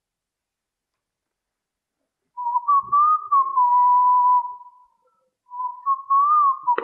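A person whistling a slow tune, one wavering note line in two phrases with a short break between them; the whistling begins about two and a half seconds in after dead silence.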